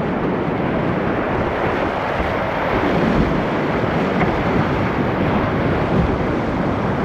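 Steady rush of whitewater in a river rapid.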